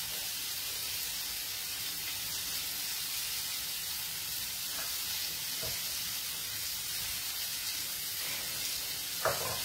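Oil sizzling steadily in a frying pan on a gas burner, with a few faint knocks and a sharper clack near the end.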